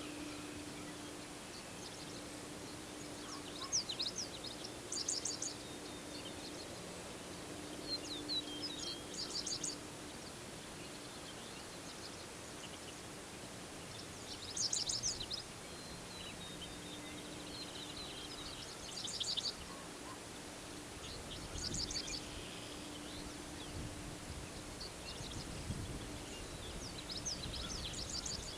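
Songbirds singing in a prairie grassland: short, high, rapid song phrases of about a second each, repeated every few seconds, over a faint steady low hum that breaks off now and then and a low rumble late on.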